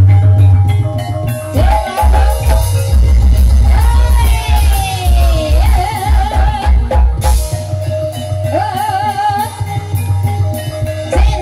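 Ebeg (Banyumas horse-dance) accompaniment music: a steady hand-drum and gong beat with short tuned-percussion notes. A singer's voice glides and wavers over it through most of the stretch.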